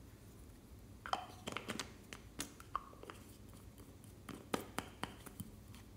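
A small hard-plastic jar being handled and its lid fitted back on: a string of sharp plastic clicks and taps, starting about a second in, with a second cluster near the end.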